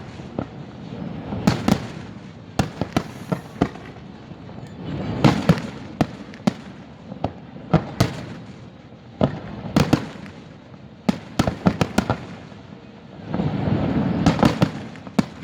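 Fireworks display going off: a steady stream of sharp bangs from bursting shells, several at a time, with swells of dense crackling about five seconds in and again near the end.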